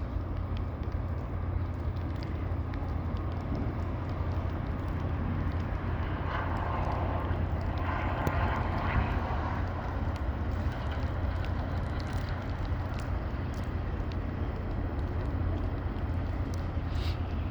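Traffic in a snowstorm over a steady low rumble of wind on the microphone. One vehicle passes with a swelling tyre hiss in the middle, building and fading over about four seconds.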